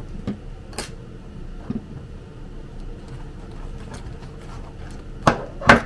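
Small gear being handled and packed into a fabric hip pack: a few faint clicks in the first two seconds, then two sharper knocks close together near the end.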